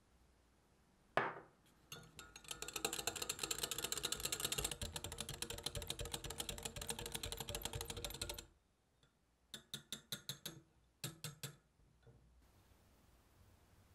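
Wire whisk beating chocolate tart filling in a glass Pyrex measuring cup: after one sharp knock, a fast, dense clatter of the tines against the glass goes on for about six seconds and stops abruptly. Two short runs of sharp taps follow, about six and then three.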